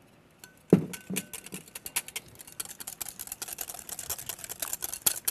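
Wire whisk beating against a glass mixing bowl, a rapid run of clicks that begins with a sharper knock under a second in, as oil is whisked into a yogurt dressing.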